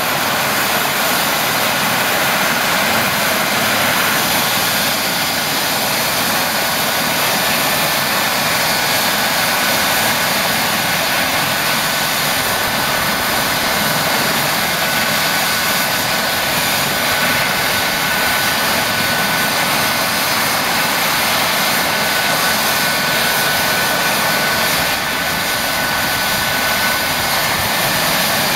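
Eurocopter EC135 helicopter running on the ground with its rotors turning: a steady rush of rotor and turbine noise with a thin, high turbine whine held throughout.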